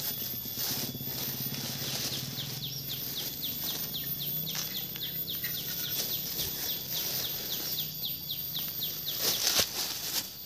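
Rustling and soft pattering as goat manure is handled and scattered around garden plants, with the loudest rustle near the end. A steady run of short, falling high chirps goes on behind it.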